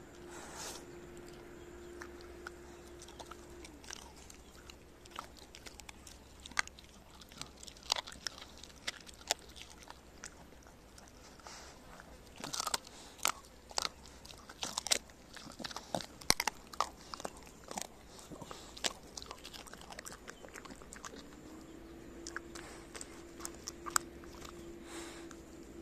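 Shiba Inu crunching and chewing boiled chicken carcass bones left from making stock: irregular sharp crunches of bone, coming thickest in the middle.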